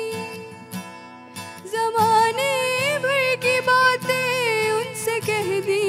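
Female singer's voice in a Pakistani song performance: a held note fades in the first second, and about two seconds in she comes back with a wavering, ornamented melodic line over a steady instrumental accompaniment.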